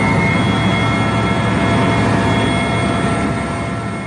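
Helicopter engine and rotor noise heard from inside the cabin: a loud, steady low rumble with a high turbine whine on top, beginning to fade at the very end.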